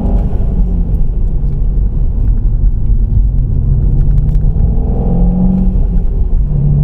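Seat Leon Cupra Mk2's 2-litre turbocharged TFSI four-cylinder engine heard from inside the cabin while driving, over a heavy road rumble. The engine note climbs and drops back at the start, and again about five seconds in, as the revs rise and fall through gear changes.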